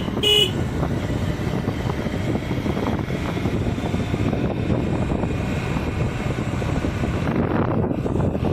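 A vehicle horn beeps once at the very start. Then steady road and engine noise from a moving vehicle follows, with wind buffeting the microphone.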